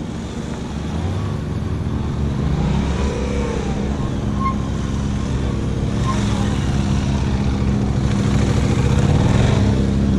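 Motorcycle engine revving up and down, its pitch rising and falling several times as the bike works around a tight cone course. It grows louder as the bike comes nearer toward the end.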